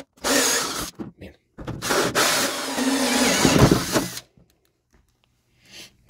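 Power drill spinning a hole saw through a plastic dash panel. It runs in bursts with short stops in between, then stops about four seconds in. The saw melts through the plastic more than it cuts it, a sign of a poor hole saw.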